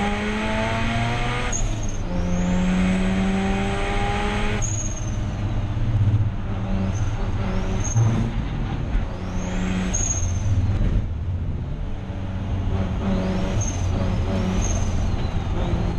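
Turbocharged 13B rotary engine of a Mazda RX8 race car accelerating hard, its pitch climbing twice with a break at each gear change. It then comes off the throttle and takes short bursts of power. A high turbo whistle rises and falls with each application of throttle.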